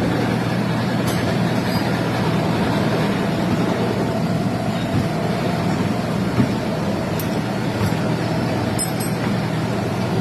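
A machine running steadily with a low hum, a few light clicks over it.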